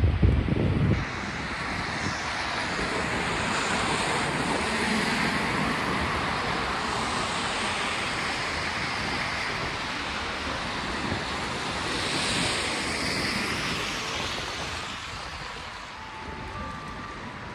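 City street noise: a steady hiss of traffic on a wet road, swelling twice, loudest about twelve seconds in, then easing. Wind buffets the microphone in the first second.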